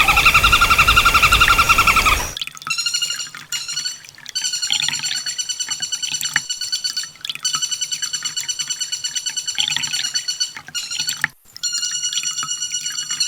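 Olive-backed sunbird song: long, fast buzzy trills, one after another with short breaks. The first trill, in the opening two seconds, is the loudest and harshest.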